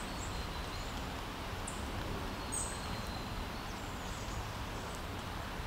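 Firecrest giving a few short, very high, thin calls, spaced a second or so apart, over a steady background hiss.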